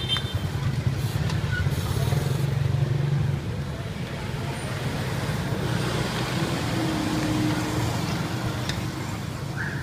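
Street traffic with a motor vehicle's engine rumbling close by, loudest for the first three seconds or so and easing after, over a steady traffic hum.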